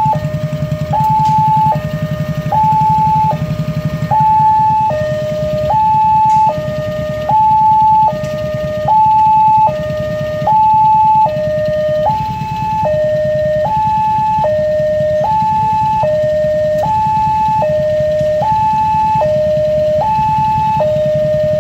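Indonesian railroad level-crossing warning alarm sounding its two-tone electronic chime, alternating evenly between a higher and a lower note about every 0.8 s, the signal that a train is approaching. A steady low rumble runs underneath.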